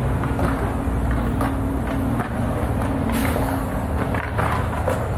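Road traffic on a city street: a low engine rumble with a steady hum that stops about four seconds in, and a few short knocks.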